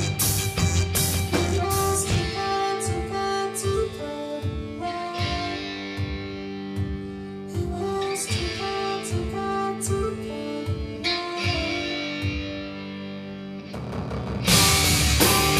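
Live rock band playing: drum kit, bass guitar, electric guitar and a Nord Stage keyboard. After about two seconds it drops to a quieter passage of held keyboard chords over a steady beat, and the full band comes back in loud with crashing cymbals near the end.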